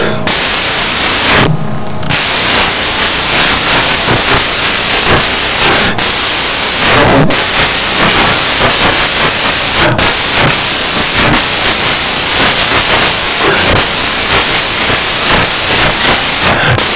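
Loud, steady hiss of static noise filling the audio track, with a short drop out of it about a second and a half in.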